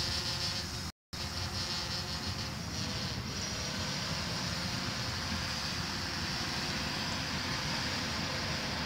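Steady buzzing hum of a DJI Phantom 4 quadcopter's propellers in flight, with a low rumble underneath. The sound cuts out briefly about a second in.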